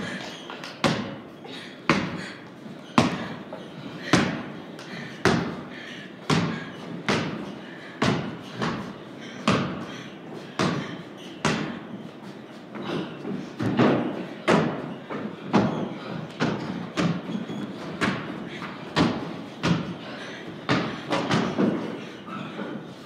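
Basketball dribbled on a wooden plank floor: a run of sharp thuds, about one to two bounces a second, each ringing on briefly in the big wooden room.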